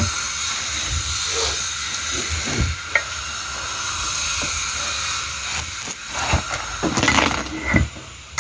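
Steady hiss of water, then a quick series of knocks and clicks in the last few seconds, as a watermelon is handled for cutting.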